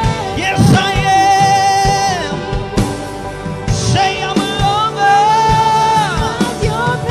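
Live worship singers with amplified voices, male and female, singing a slow praise song over instrumental accompaniment, holding long notes with vibrato about a second in and again around five seconds in.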